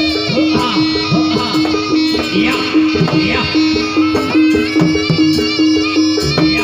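Jaranan pegon, East Javanese traditional horse-dance music, mixed with heavy bass. A short note repeats evenly about two to three times a second under low notes that glide in pitch, with a high melody line above.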